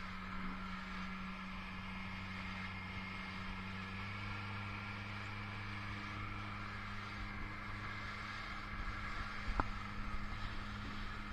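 Outboard motor of a panga running at a steady cruising speed, a constant drone over the hiss of water rushing past the hull. A single short knock about nine and a half seconds in.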